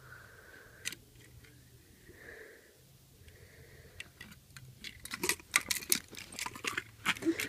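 Small die-cast toy cars being handled: faint at first, then from about halfway a quick run of light clicks and taps as the cars are lifted and knocked against each other.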